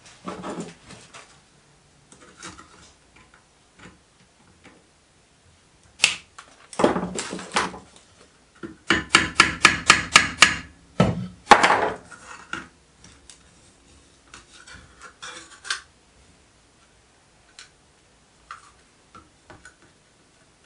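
Small hammer tapping a thin copper sheet over a steel bar held in a vice, shaping the seam of a copper boiler shell: a single blow about six seconds in, then a quick run of about ten light taps, with the copper rubbing and clattering in between.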